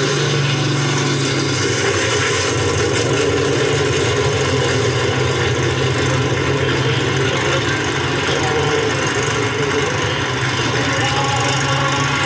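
Stock car engines running at a steady speed, a continuous drone with no let-up.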